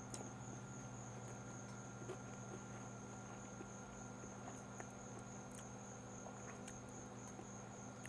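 Faint, steady high-pitched trilling of insects in the background, over a low steady hum, with a few faint clicks.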